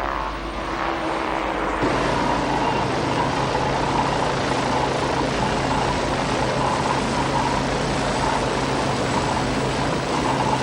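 Westland Wasp helicopter running, a steady turbine and rotor noise; the sound changes abruptly about two seconds in to a steadier tone.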